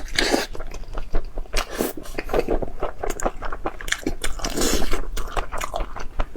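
Close-miked chewing and biting of food, with irregular crunches and wet mouth clicks, and two longer breathy noises, near the start and about three-quarters through.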